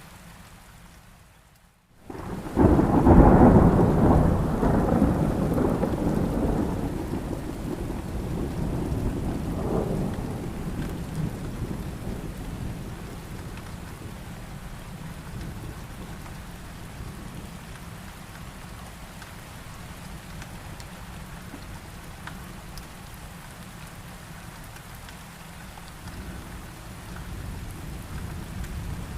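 Rain that dips almost to silence for a moment, then a sudden loud thunderclap about two seconds in that rumbles away over several seconds. A second, weaker rumble comes around ten seconds, then steady rain.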